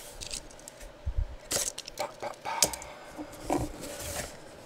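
Cardboard mystery box being handled and its sealed lid opened: scattered taps, scrapes and rustles of cardboard, with a few short squeaks in the middle.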